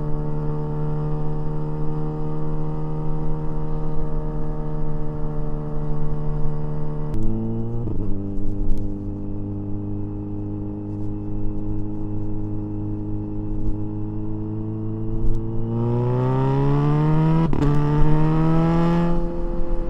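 Kawasaki Ninja 1000SX inline-four motorcycle engine and exhaust under way, heard from the rider's position. It holds a steady note, drops sharply in pitch about seven seconds in, runs steady at the lower pitch, then revs rise near the end with a quick break and a drop in pitch, typical of a quickshifter upshift.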